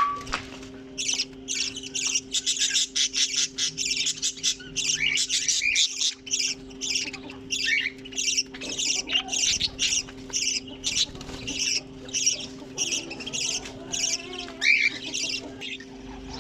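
A colony of budgerigars chattering and squawking: many short, sharp calls overlapping almost without a break.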